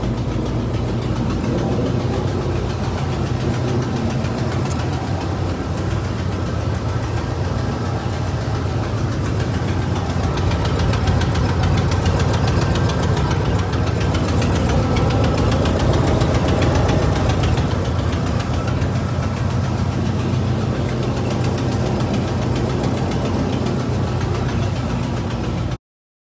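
1976 Cadillac Eldorado's 500-cubic-inch V8 idling steadily, a little louder in the middle. An exhaust manifold leak makes it sound like a race car.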